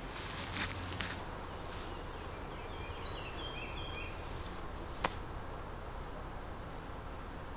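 Quiet woodland ambience with a few faint bird chirps about three seconds in, and a couple of sharp clicks, the clearest about five seconds in.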